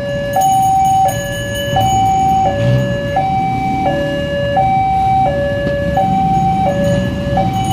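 Railway level-crossing warning alarm sounding a steady two-tone electronic hi-lo signal, switching between a higher and a lower tone about every two-thirds of a second. It is the crossing's warning that a train is approaching and the road is closed.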